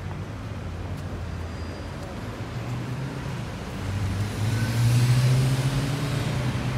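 Street traffic: a motor vehicle's engine hums steadily, growing louder about four seconds in, loudest about five seconds in as it passes, then easing.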